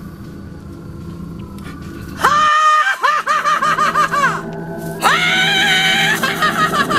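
A man's shrill, manic cackling laugh in quick ha-ha-ha pulses, about four a second. It starts about two seconds in, breaks off briefly, and starts again about five seconds in, over a low steady drone.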